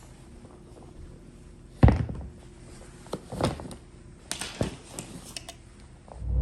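A few separate knocks and thumps, the loudest about two seconds in and several smaller ones over the next three seconds.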